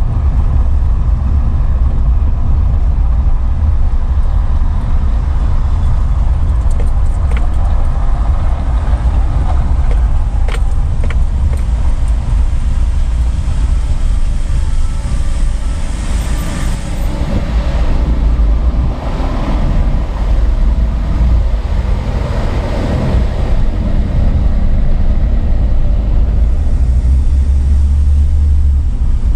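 Car driving slowly in dense city traffic: a steady low rumble of road and engine noise, with the noise of nearby vehicles swelling several times in the second half.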